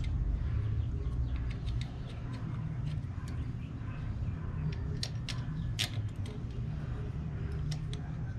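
Scattered light clicks and clinks from a metal motorcycle side stand being handled, with a sharper click a little under six seconds in, over a steady low rumble.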